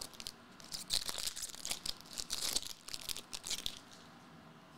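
Shiny foil wrapper of a trading-card pack crinkling and tearing as it is opened by hand, the crackling stopping a little under four seconds in.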